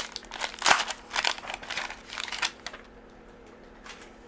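Baseball card pack wrapper crinkling and rustling as it is torn open, in a quick run of rustles for the first couple of seconds, then a few faint clicks of handling.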